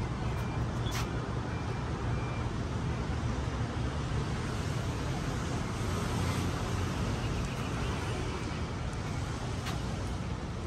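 Steady outdoor background rumble and hiss, heaviest in the low end, with a brief sharp click about a second in and another near the end.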